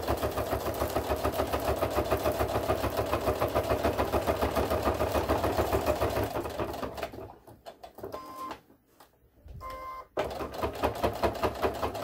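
Electric sewing machine stitching fast and evenly while topstitching around the edge of a small fabric piece. About seven seconds in it slows and stops, with two short beeps during the pause. It starts stitching again near ten seconds in.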